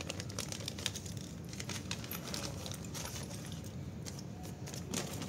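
Light, scattered clicks and clinks of small metal audio connector parts being handled, with a steady low background hum.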